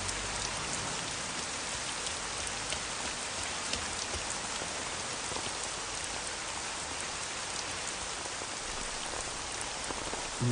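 Steady rain falling in an even hiss, with faint scattered ticks of drops.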